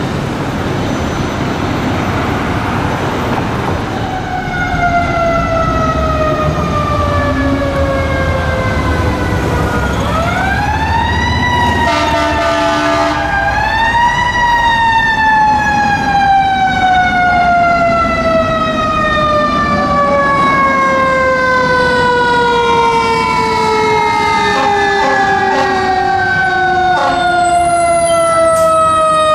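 A fire engine's mechanical Q-type siren winds up and coasts down in long slow falls of pitch. It is brought back up twice partway through, then drops steadily. Heavy vehicle engines and city traffic rumble underneath.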